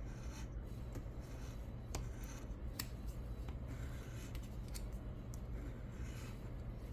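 Soft scraping with scattered short scratches as the coating is rubbed off a scratch-off lottery ticket.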